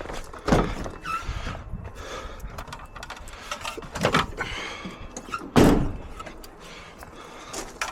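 A gate being climbed over: knocks and rattles of the gate, with two heavy thumps, one about half a second in and one past the middle.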